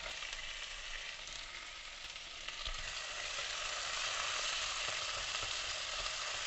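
Chopped tomato and diced potatoes sizzling in hot oil in a non-stick kadai, stirred with a silicone spatula. The hiss grows louder about two and a half seconds in.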